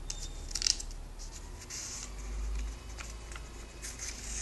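Comic book pages being handled and turned by hand: crisp paper rustles and crackles, sharpest about half a second in, with softer rustling after.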